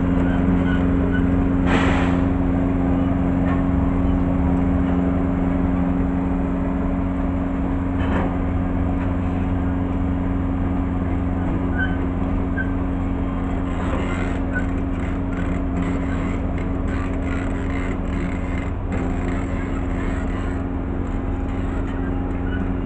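Engine of a small remote-controlled crawler dozer (a 'house cat') running steadily as it moves a modular home section up a gravel driveway, with a few short knocks.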